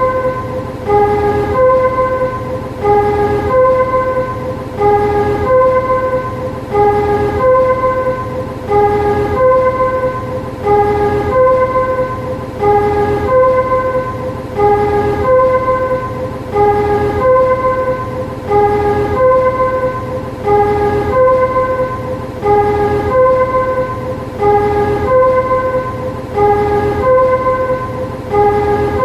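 Shunting vehicle's warning chime: a two-note, low-then-high chime repeating about every two seconds over a steady low hum.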